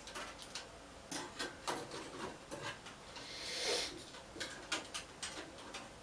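Metal I/O shield being handled and pressed into the back of a PC case: scattered light clicks and taps, with a short scraping rustle about three and a half seconds in.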